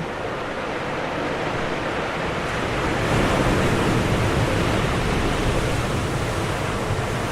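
Ocean waves breaking on the shore: a continuous rush of surf that swells to its loudest about three seconds in and then holds steady.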